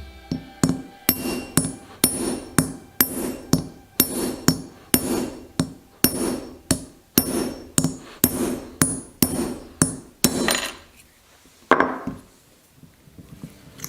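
A hammer striking metal in a steady rhythm of about two blows a second, each blow ringing briefly, then a pause and one last, longer scraping strike near the end.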